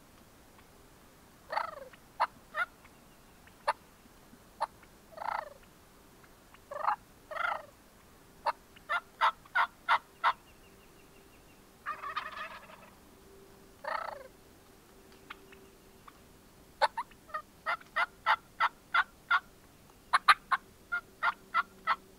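Wild turkeys calling: several rough, rattling gobbles, and three runs of short sharp yelps at about three a second.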